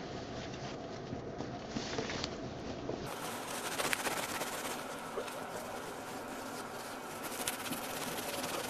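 Crosnes (Chinese artichoke tubers) being scrubbed vigorously with coarse salt inside a cotton tea towel to strip off their skins' impurities: a steady rustling rub of cloth with small scattered ticks.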